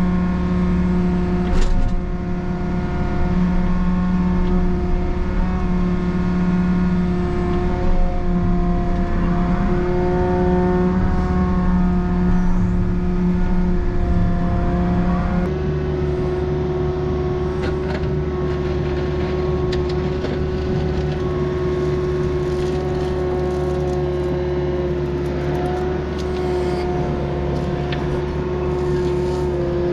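Takeuchi diesel earthmoving machine running under work, its engine and hydraulics giving a steady drone with a steady whine over it; the engine note shifts about halfway through as the load changes, with a few scattered knocks from the work.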